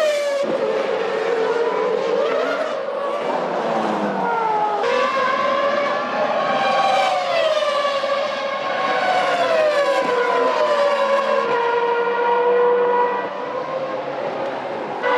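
V10 engines of 1998 Formula One cars running at high revs, the pitch falling in steps and climbing again as they brake, shift down and accelerate, with a sudden change about five seconds in.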